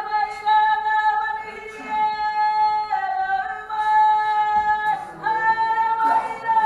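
A woman singing a slow melody of long held notes, with little or no accompaniment.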